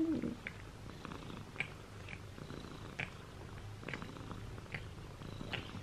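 A domestic cat purring steadily, close up, with a few faint soft clicks over it.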